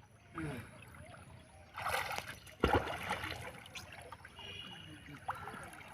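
River water splashing and trickling, with a brief rush of water about two seconds in and a sharp, louder splash just under three seconds in.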